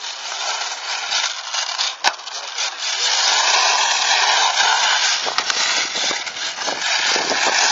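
Brushless electric motor of a 1/8-scale Team Associated RC8B buggy whining, its pitch rising and falling with the throttle, over the scrabble of tyres on dry dirt. A sharp click about two seconds in.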